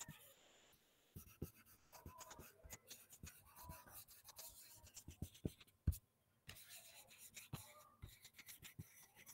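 Faint, quick scratching and tapping of a stylus writing on a tablet. There is a sharper tap about six seconds in, followed by a brief pause.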